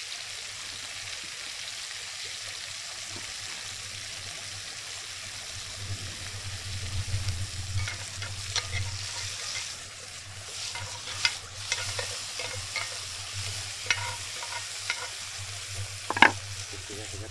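Buffalo steak frying in a pan with a steady sizzle, while a utensil scrapes and knocks against the pan from about eight seconds in, the sharpest knock near the end.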